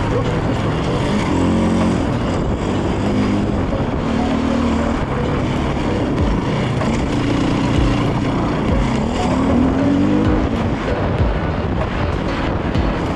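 KTM enduro dirt bike's engine being ridden hard, revving up and down so that its pitch rises and falls several times.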